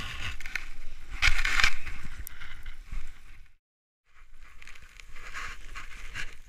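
Rustling, scraping handling noise from a camera held close to a skier's face and gloves, with a low rumble under it; the loudest stretch comes just over a second in. It drops to silence for about half a second a little past the middle, then resumes.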